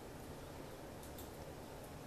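Quiet room tone with a few faint light ticks.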